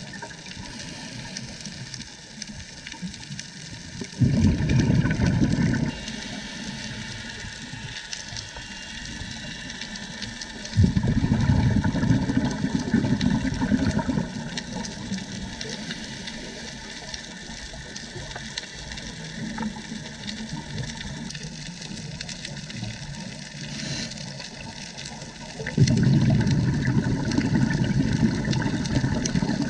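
Underwater sound of a scuba diver's regulator exhaling: three loud low rushes of bubbles, a few seconds each, about 4, 11 and 26 seconds in, over a steady underwater hiss with faint crackling.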